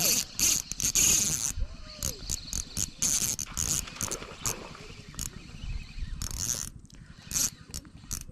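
Fishing reel being cranked in short, irregular bursts, a hissy high-pitched whirr as the line is wound in.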